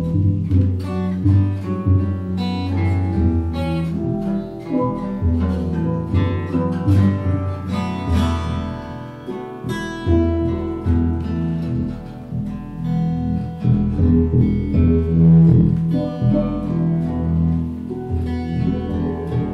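Instrumental music: a plucked acoustic guitar playing a run of single notes over long, low bass notes.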